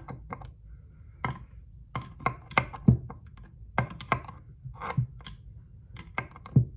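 A string of irregular sharp metal clicks and taps, about a dozen, a few of them loud knocks, as small 4L60E transmission parts are handled and pushed to check that they move freely.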